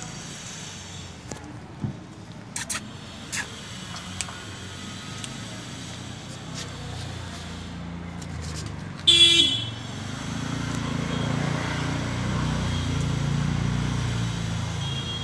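A short vehicle horn toot about nine seconds in, the loudest sound, after a few light clicks. Then a motor vehicle's engine rumbles, growing louder and holding.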